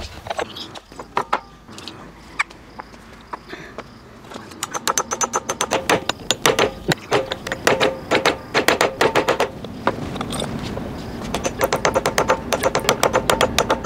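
Claw hammer tapping a steel bearing down onto a wooden axle stub: a rapid series of light, ringing metal-on-metal taps, several a second. The tapping starts a few seconds in, pauses briefly near the ten-second mark, then picks up again.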